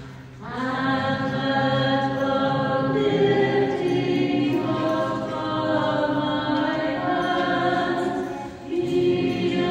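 Orthodox church choir singing slow liturgical chant in several voices. The singing swells about half a second in and holds long notes, with a short break near the end before the voices come back.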